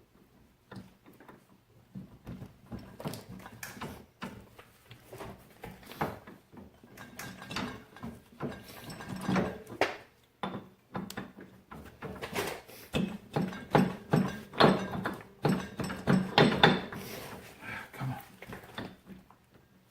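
Irregular knocks and clunks of metal ATV axle parts being pushed and worked by hand into place, growing busier and louder in the second half.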